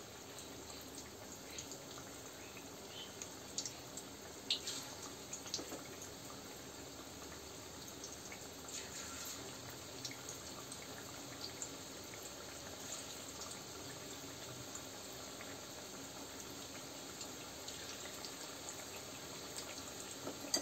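Batter-coated chicken pieces deep-frying in hot oil: a faint, steady sizzle with scattered small pops and crackles.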